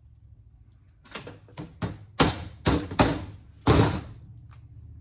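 A hammer striking a small copper-wire coil to break it open: about seven sharp blows at an uneven pace, the later ones the loudest.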